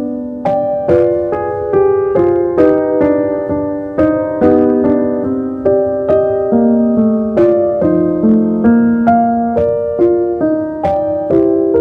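Slow, gentle piano music: a melody of single notes struck about twice a second over held chords.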